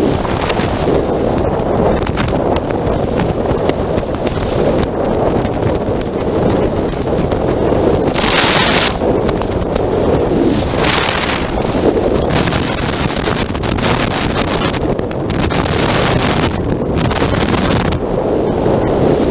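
Wind buffeting the microphone of a camera on a Harley-Davidson motorcycle riding at highway speed: a steady loud rushing, with the motorcycle's engine and tyre noise under it. Several stronger gusts of hiss come and go.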